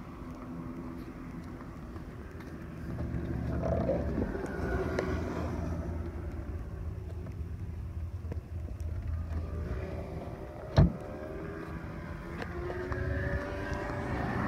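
A 1999 Dodge Viper's 8.0-litre V10 idling with a steady low note that grows louder about three seconds in. A single sharp thump comes near the end.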